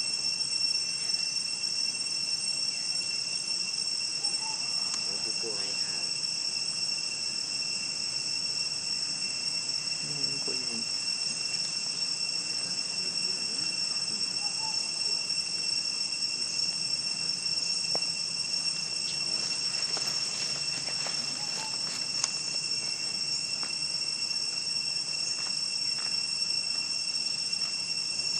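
Steady, high-pitched chorus of insects, a constant shrill drone with a second, lower steady tone beneath it, and a few faint soft clicks in the middle.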